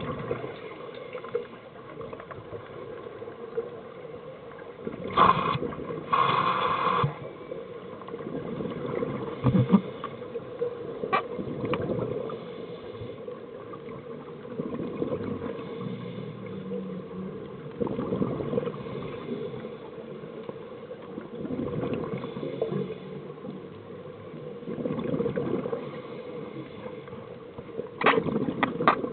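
Scuba breathing heard underwater through the camera housing: regulator breaths and exhaled bubbles gurgling and gushing in swells every few seconds, with louder bubble bursts about five seconds in and again near the end.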